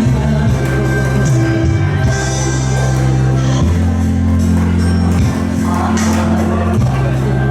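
Korean trot song playing at a steady level, with long held bass notes under the melody.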